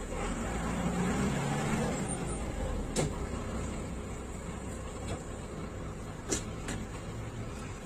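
Bus engine running with a steady low rumble, heard from inside the cabin, swelling a little in the first two seconds. Two sharp clacks come about three and six seconds in.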